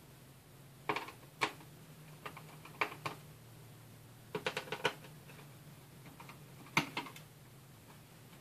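Scattered light clicks and taps of small screws and parts being handled in the plastic underside of an Asus X51R laptop, singly and in a quick cluster of several about halfway, over a faint low hum.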